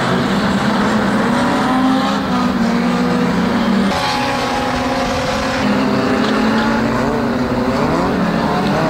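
Engines of several pre-1975 banger racing cars running together in a steady drone, with revs rising and falling near the end as they race.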